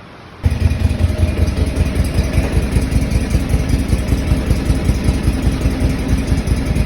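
Engine of a skid-steer machine running with a fast, even pulse. It starts abruptly about half a second in.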